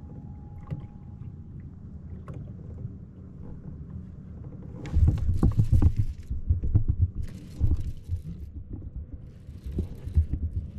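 Water lapping and knocking against a kayak hull. Then, from about five seconds in, repeated loud bursts of splashing as a hooked largemouth bass thrashes and jumps at the surface.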